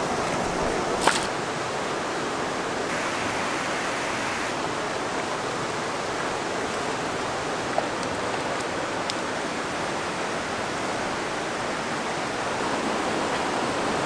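Steady rushing of a mountain trout stream's riffles and small rapids, with a brief sharp tap about a second in and another about eight seconds in.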